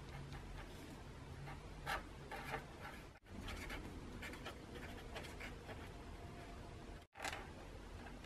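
Fine-tip marker pen scratching across card stock in short strokes as words are handwritten. The sound is quiet and cuts out briefly twice, about three and seven seconds in.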